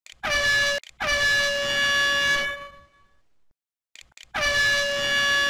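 Basketball scoreboard buzzer sound effect from the game-timer program, a harsh horn-like buzz. It sounds three times: a short blast cut off after about half a second, an immediate restart lasting about a second and a half, and another blast about four seconds in. Each blast dips slightly in pitch as it starts, then holds steady.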